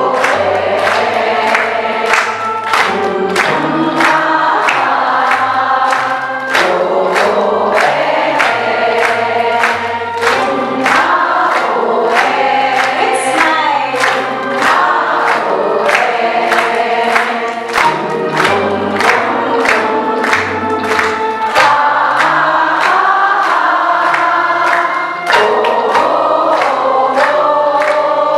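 A group of women singing together, led by one voice on a microphone, with hand-clapping in time at about two claps a second.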